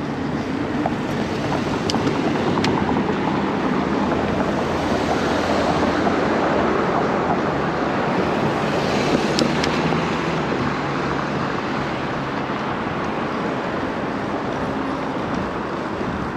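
City street traffic heard from a moving bicycle: motor vehicles running nearby over a steady rush of road and wind noise on the microphone, swelling for a few seconds midway. A few faint sharp ticks come about 2 s and 9 s in.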